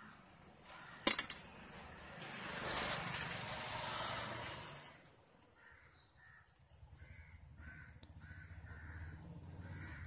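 Crows cawing, a run of short calls about two a second in the second half. About a second in come a few sharp clicks, and between about two and five seconds a louder rushing noise swells and fades over a steady low hum.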